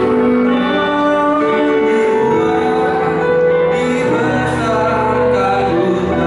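A group performing a song live: singing over instrumental accompaniment, with long held notes and a voice line wavering with vibrato in the second half.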